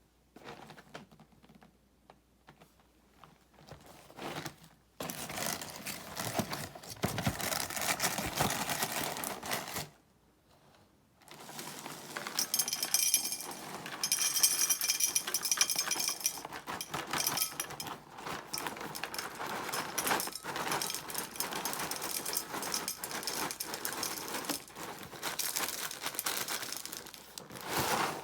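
Honey Nut Cheerios packaging being handled: the box and its plastic liner bag crinkle and rustle, with the cereal rattling inside. A few scattered taps come first, then continuous crinkling with a short pause partway through.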